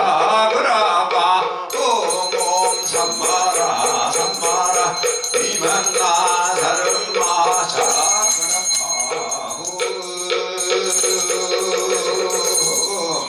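Buddhist ritual chanting in a steady, wavering voice, with a small bell jingling along in rhythm; a high, steady ringing tone joins about two seconds in.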